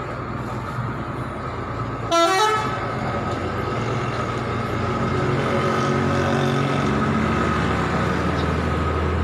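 Mercedes-Benz OH 1526 bus's diesel engine running, with one short horn toot about two seconds in that rises in pitch. From about five seconds in the engine grows louder and deeper as the bus pulls away.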